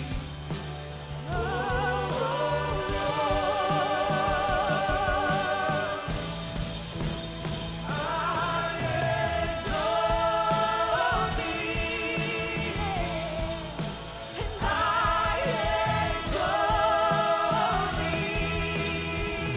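Church worship music: singers holding long notes with vibrato over a steady band accompaniment in a slow song.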